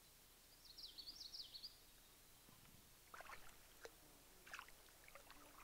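Faint outdoor quiet with a brief songbird phrase of quick high notes about a second in. From about three seconds in come light, scattered splashes of shallow lake water as a child wades and dabbles her hands.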